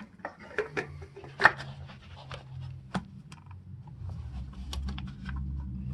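Light clicks and knocks of hands working in the engine bay, as the plastic oil filler cap is screwed back on, the sharpest knock about a second and a half in. A low steady hum underneath grows louder in the last two seconds.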